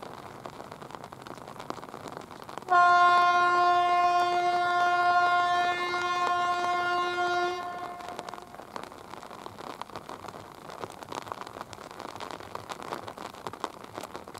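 A train horn sounds one long, loud, single-pitch blast lasting about five seconds, starting sharply about a third of the way in, over the steady hiss of rain. It is the departing train's departure signal.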